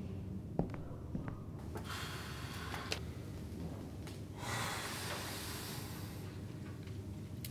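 A man breathing out heavily, two long exhales, the second the louder, over a low steady hum, with a few faint clicks in the first three seconds.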